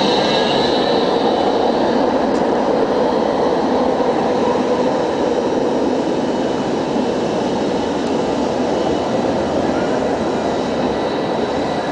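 Electric street tram running past along its street track: a steady rumble of steel wheels on rail with a thin high whine from the drive above it, easing slightly near the end.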